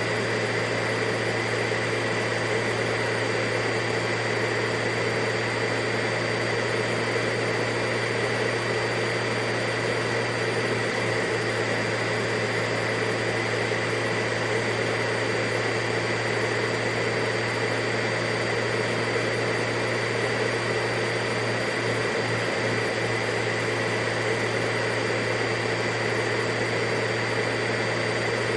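Vacuum cleaner running steadily: a constant low hum and a high motor whine over an even rush of air, with no change in pitch or level.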